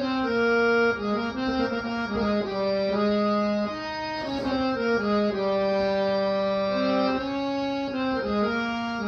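Instrumental background music: a tune of held, reedy notes moving over a sustained low note.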